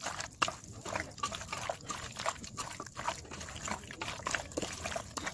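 A hand squishing and kneading raw chicken pieces in a thick yogurt marinade: irregular wet squelches and slaps.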